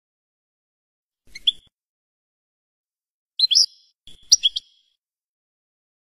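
European goldfinch giving short, high chirping calls: a single brief call about a second and a half in, then two quick clusters of chirps a little after the middle.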